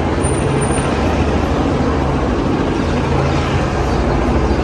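City street traffic: cars passing, over a steady low engine hum.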